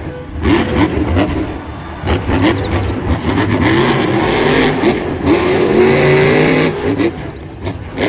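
Engine revving sounds for a toy monster truck, the pitch rising and falling repeatedly and most intense in the middle of the stretch.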